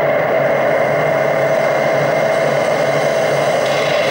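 Live electronic sound design from a laptop: a dense, steady droning noise texture that sounds like machinery running, with a faint pulsing low hum beneath it.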